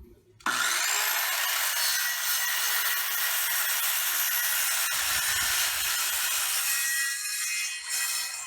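Hoyoma HT-CS1400 1400 W circular saw with a 24-tooth 185 mm blade switched on about half a second in, its pitch rising as the motor spins up, then running steadily as it cuts through a board of paluchina wood, with a brief dip near the end.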